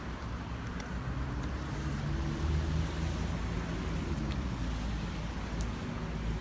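An engine humming steadily at low revs, a little louder for a second or two in the middle, under wind and outdoor background noise, with a few faint clicks.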